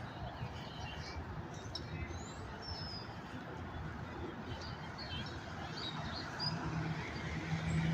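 Small birds chirping in short, scattered high calls over a steady low outdoor rumble; a low steady hum joins in near the end.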